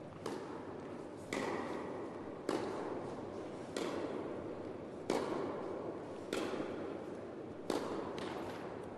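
Tennis rally: a serve and then about seven racket strikes of the ball in all, roughly one every 1.2 seconds, each ringing out with an echo in an indoor tennis hall.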